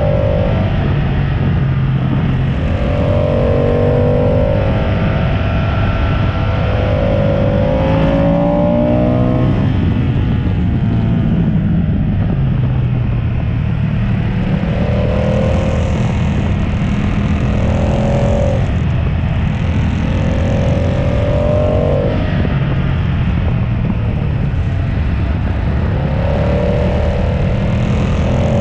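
Motorcycle engine heard from on board under way, its revs rising and falling every few seconds, over a steady rush of wind and road noise.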